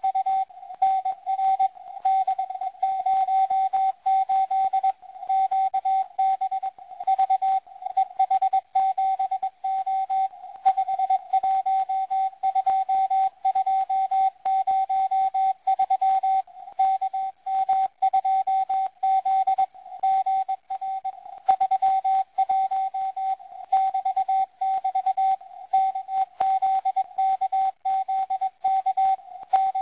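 Morse code from the 4XZ Israeli naval CW number station, received on shortwave: a single beep tone keyed rapidly on and off as it sends five-letter cipher groups, with brief pauses every second or two, over a faint radio hiss.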